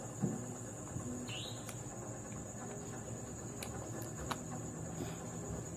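A few sharp, scattered clicks of small metal parts and tools being handled while an air horn's valve housing is taken apart, over a steady high-pitched insect chirr.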